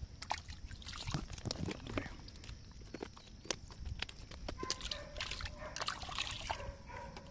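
Water splashing and sloshing at the shoreline, broken by many irregular small clicks and knocks.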